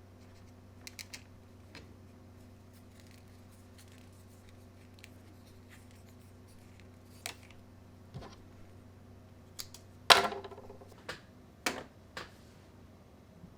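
Scattered light clicks and taps over a steady low hum, with one sharper knock about ten seconds in followed by a few more taps.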